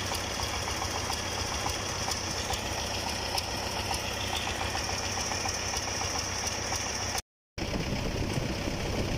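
Single-cylinder diesel engine of a Yanmar tracked rotary tiller running steadily with an even knocking beat. The sound drops out for a moment about seven seconds in, then the engine runs on.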